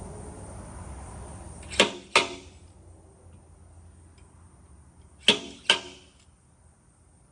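A glue-pull dent puller yanking glue tabs off a motorcycle fender: two pairs of sharp, ringing snaps, each pair about half a second apart, as the tabs pop free while the dent is lifted.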